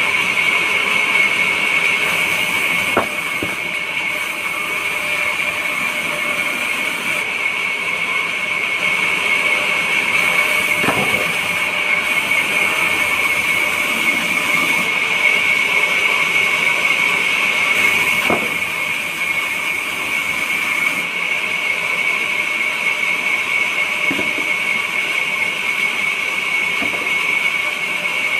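Sawmill band saw running with a steady, loud high-pitched whine, with a few short knocks of wood against the machine.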